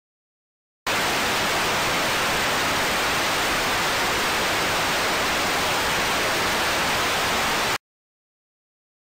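Television static: an even hiss that starts abruptly about a second in, holds steady for nearly seven seconds and cuts off sharply, with dead silence before and after.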